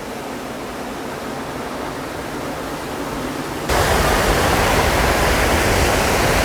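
Steady rush of water pouring over a small river dam and waterfall. About two-thirds of the way in it abruptly becomes louder and fuller, with more low rumble.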